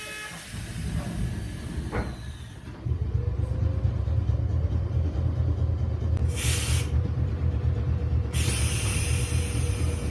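Streetcar pulling away from a stop. A click about two seconds in, then a low rumble of the running gear and a steady hum set in and carry on. There is a brief burst of hiss about six seconds in and more hiss from about eight seconds.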